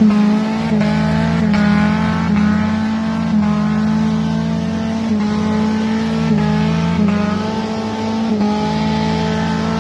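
Off-road 4x4's engine held at high revs under full throttle, its pitch stepping up and down every second or so as the spinning tyres dig into a steep dirt climb.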